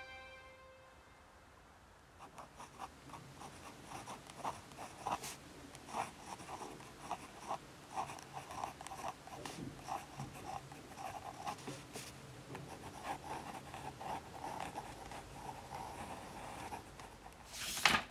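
A long run of short, irregular scratching strokes, followed by a brief, loud rush of noise just before the end.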